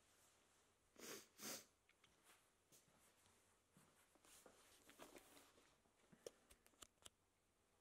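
Near silence broken by two quick sniffs close to the microphone about a second in, then a few faint clicks and rustles.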